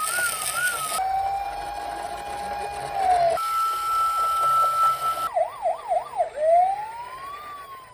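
Electronic police-car siren sounds switching abruptly from one pattern to the next: a fast warble, a long steady tone that drops at its end, a higher steady tone, then a few quick yelps and a slow rising and falling wail.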